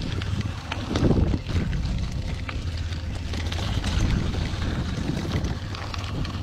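Wind buffeting the microphone of a mountain bike's handlebar camera, over a low rumble of tyres and short rattles and clicks from the bike riding fast down a rocky trail.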